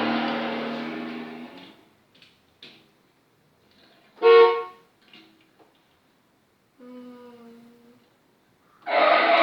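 Sound-effect buttons on an electronic keyboard playing short recorded car sounds one after another: a dense sound fading out within the first two seconds, a short loud horn-like honk about four seconds in, a quieter steady pitched tone around seven seconds, and another loud sound starting near the end.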